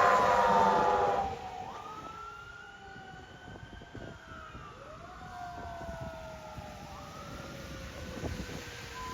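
Fire engine's air horn blasting over a siren that is winding down in pitch, cut off about a second in. After that a fainter siren wails slowly up and down.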